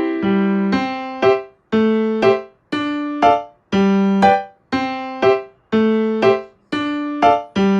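Background music: a light piano-style keyboard tune of short plucked notes that fade quickly, in a phrase that repeats about once a second.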